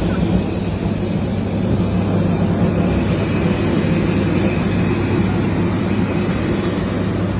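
An engine running steadily: a loud, even drone with a deep hum that does not change.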